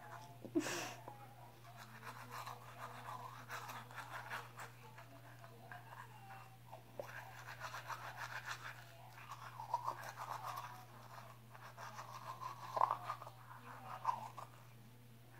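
Manual toothbrush scrubbing teeth in quick, irregular strokes, with a few louder scrapes. A steady low hum sits underneath.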